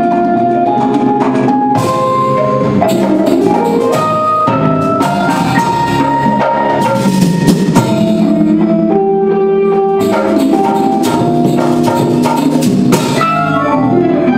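Jazz ensemble playing live: Sundanese kendang hand drums and metal percussion striking busily under a moving line of pitched notes from Fender Rhodes electric piano, electric bass and guitar.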